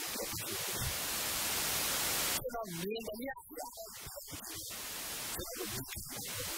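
A steady hiss like static, swelling slightly for about two seconds and cutting off abruptly, then a man speaking through a microphone, with another short patch of hiss partway through.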